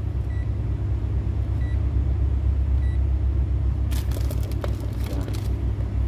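Steady low rumble throughout, with three faint short beeps in the first three seconds, then rustling and clicks of a multimeter's test leads being handled about four seconds in.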